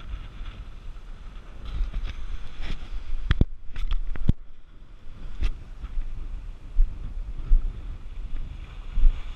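Wind buffeting the microphone over sea waves washing against rocks, gusting up and down. A quick cluster of sharp clicks about three to four seconds in, and one more a second later.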